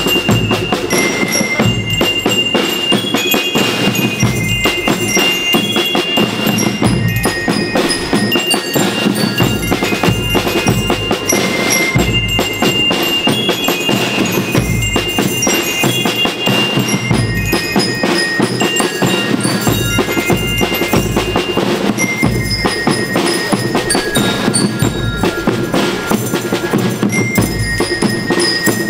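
School rhythm band playing: bell lyres ring out a melody over a steady marching beat of snare and bass drums.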